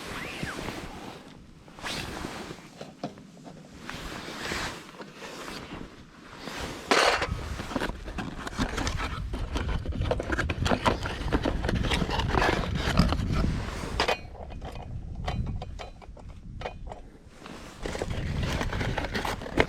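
Metal camp cooking gear being handled: irregular clinks, knocks and scrapes, busiest in the middle.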